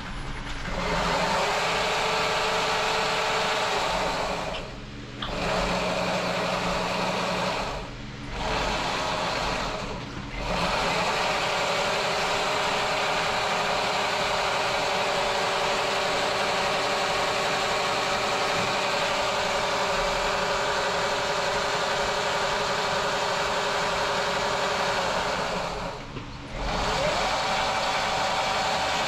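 Electric dirt bike motor, driven by a Nucular 24F controller during its automatic motor setup, spinning the rear wheel on its own: a steady electric whine. It cuts out briefly four times and comes back each time at a different pitch, rising after the last break.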